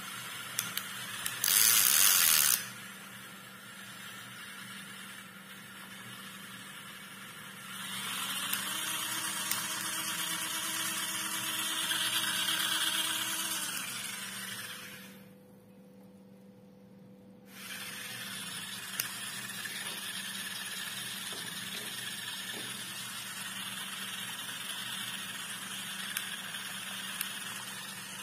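Small electric motors of two remote-control toy tractors whirring steadily as they strain against each other in a tug-of-war through muddy water. A brief loud burst of noise comes about two seconds in, the motor whine swells and shifts in pitch under load in the middle, and the sound drops out for a couple of seconds just past the middle.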